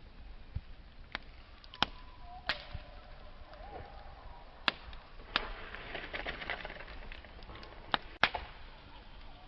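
Campfire burning, its wood crackling with sharp pops every second or so and a denser run of crackling about six seconds in. The loudest snaps come near the end, two in quick succession.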